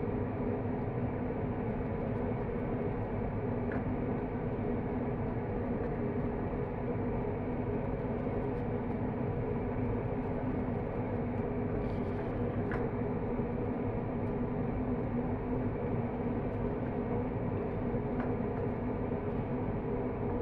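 A steady mechanical hum with a few faint taps of a wooden spatula against a frying pan as chicken and broccoli are stirred.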